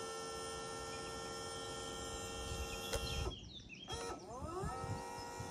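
Boatman Actor bait boat's electric propeller motors running out of the water at a steady high whine. They cut out about three seconds in and spin back up with a rising whine about a second later.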